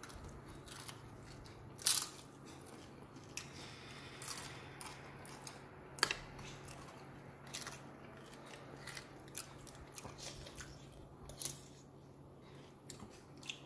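Someone eating noodles: a metal spoon clicks against a plastic bowl a few times, with crunching and chewing in between, over a low steady hum.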